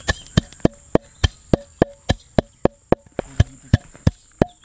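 Wooden pestle pounding fennel seeds in a mortar, a steady run of dull knocks about three to four a second, crushing the seeds coarsely.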